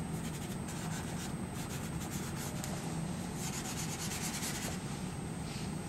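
Soft pastel stick rubbed across paper in quick, repeated scratchy strokes.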